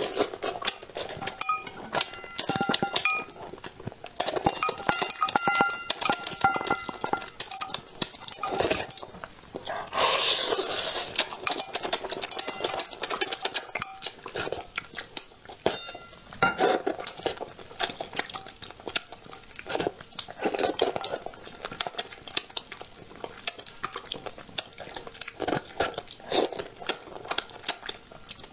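Chopsticks clicking and scraping against a plate and a metal bowl while picking apart braised fish, with many short clinks, a few of which ring briefly. Chewing and mouth sounds of eating come in between.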